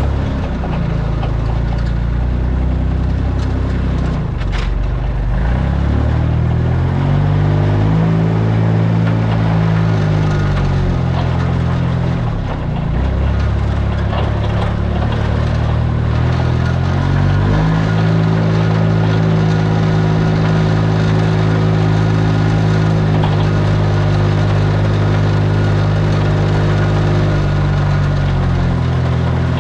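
Delivery truck engine under way, pulling away and climbing through the gears: its pitch rises and drops at each shift, then holds steady at cruising speed for a long stretch, easing off near the end.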